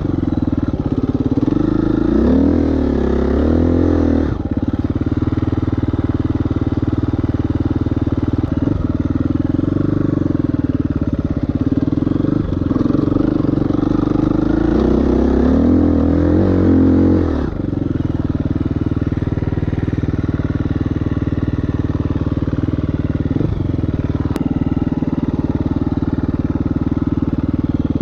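KTM 350 EXC-F's single-cylinder four-stroke engine running continuously under way. The revs climb and waver twice, about two to four seconds in and again from about fifteen seconds, then drop off sharply as the throttle closes.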